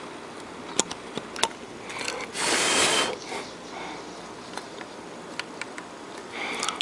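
One short rush of breath, a sniff or a puff, lasting under a second a few seconds in. A few faint clicks come before it.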